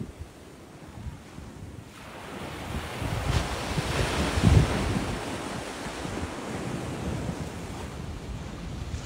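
Small waves breaking on a sandy beach: the surf swells and crashes about four seconds in, then washes up the sand. Wind rumbles on the microphone.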